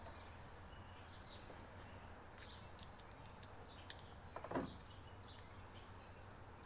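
Faint birds chirping in the background, with a single click a little before four seconds and a brief knock about four and a half seconds in, the loudest sound here.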